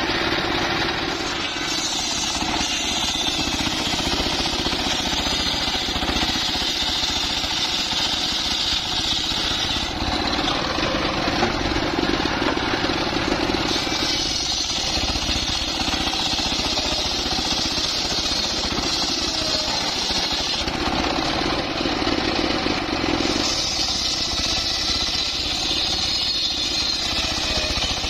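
Engine-driven homemade bench circular saw ripping teak logs lengthwise: the large blade's cutting noise over the engine's steady running. The sound changes every few seconds as one pass through the log ends and the next begins.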